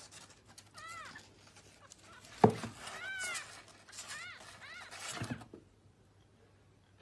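A small animal's short high calls, each rising and falling in pitch, four or five in a few seconds, with one sharp thud about two and a half seconds in.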